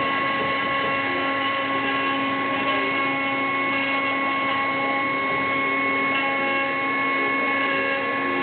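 Five-axis CNC milling machine's spindle running steadily with a constant whine as the cutter mills a block of epoxy resin during roughing.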